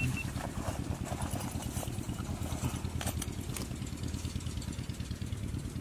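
A small engine running steadily at idle, a fast even low pulsing, with a few faint clicks over it.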